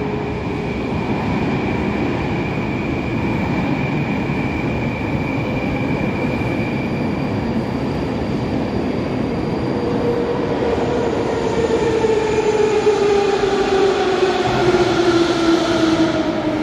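Moscow metro 81-717/714.5M 'Nomernoy' train approaching the platform out of the tunnel, with a steady rumble. From about ten seconds in, a whine falls slowly in pitch as the train slows, getting louder near the end.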